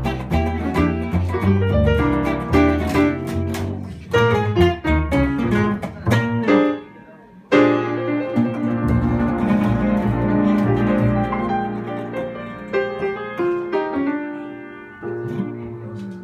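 Jazz combo of upright bass, archtop electric guitar and piano playing the closing bars of a tune. Busy playing breaks off about seven seconds in, then a final chord is struck and held, fading slowly with a few piano notes over it.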